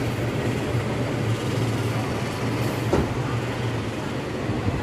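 Steady road and engine noise inside a moving car's cabin, with a low hum and a single faint click about three seconds in.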